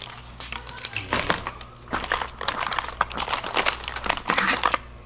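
Packaging crinkling and rustling as it is handled, in several irregular bursts.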